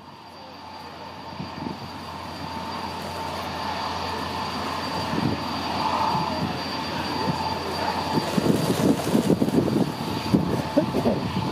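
Handley Page Victor K2's four Rolls-Royce Conway jet engines whining as the aircraft taxis toward the listener: two steady high whistles over a broad rumble, growing steadily louder. Uneven low thumps and buffeting join in the second half.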